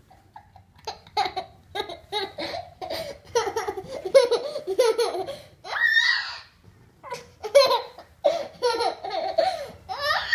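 A small child laughing in repeated high-pitched bursts, with a sharp rising squeal about six seconds in.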